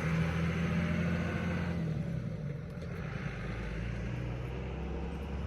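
Steady low mechanical hum, with a fainter hiss above it that drops away about two seconds in.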